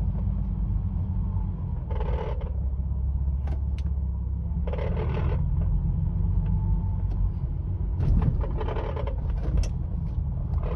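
Inside a 2005 Ford Mustang convertible: a steady low drone of engine and road, with a rattle from under the dashboard coming in three spells, around 2 s, 5 s and between 8 and 9.5 s. The rattle shows up at about 1000 rpm while cruising or coasting off the throttle, and the owner thinks it sounds like a loose bolt.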